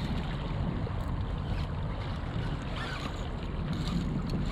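Wind buffeting the microphone with a steady low rumble, over water washing against a kayak's hull.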